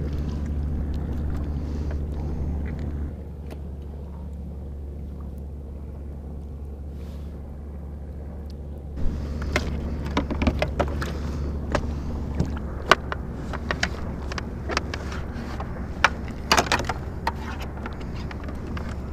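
A steady low rumble. From about nine seconds in come many sharp clicks and knocks as a fluke is handled and clipped onto a metal cable stringer in the kayak.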